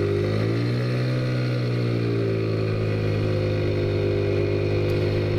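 Taotao Zummer minibike's small four-stroke engine running steadily under the rider while cruising. Its pitch rises slightly about half a second in and eases back down a second or so later.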